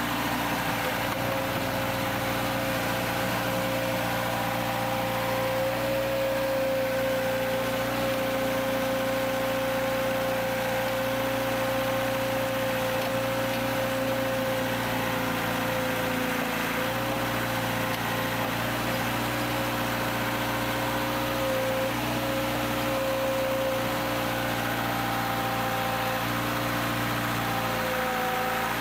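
Caterpillar backhoe loader's diesel engine running steadily, with a steady high tone over it.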